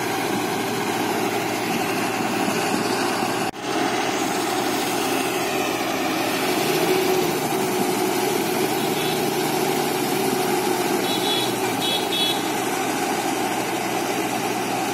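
Diesel engine of a JCB JS81 excavator running steadily, with a brief sharp drop in sound about three and a half seconds in.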